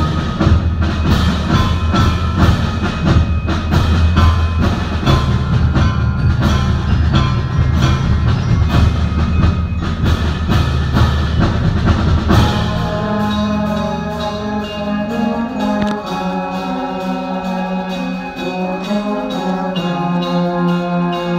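Concert band playing: for about twelve seconds dense, fast percussion hits over heavy low drums, then the winds take over with sustained chords.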